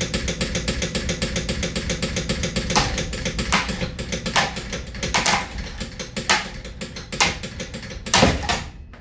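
Rapid, steady mechanical clicking, like a ratchet, with a sharp louder knock about once a second from about three seconds in; it all stops just before the end.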